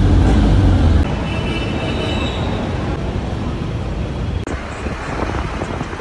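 Low engine rumble from inside a moving jeepney, cutting off about a second in to the steady noise of street traffic, which changes again near the end.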